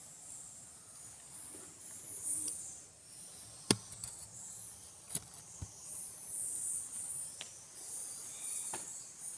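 Insects, crickets by the sound of it, chirring high-pitched in swelling and fading patches, with a few sharp clicks or knocks, the loudest about a third of the way in.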